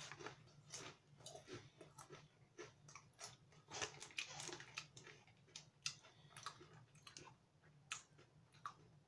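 A person chewing a thin chilli-sauce potato chip with the mouth closed, a run of faint, irregular crunches.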